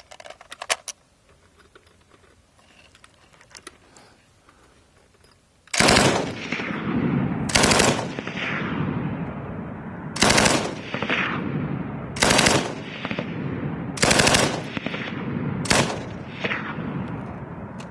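A few faint clicks, then a Japanese Type 97 tank machine gun firing six short bursts of full-auto fire in 7.7 mm rounds, about two seconds apart, each followed by a long echo.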